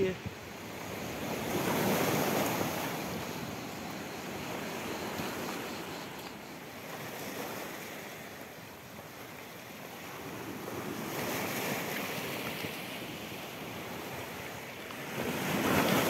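Small sea waves breaking and washing over a pebble shore, a steady hiss that swells with each wave, strongest about two seconds in, again around two-thirds of the way through and near the end.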